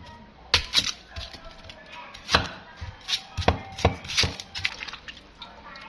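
Large kitchen knife cutting an onion into wedges on a wooden chopping board: crisp slicing through the onion layers and irregular sharp knocks of the blade on the board, thinning out near the end.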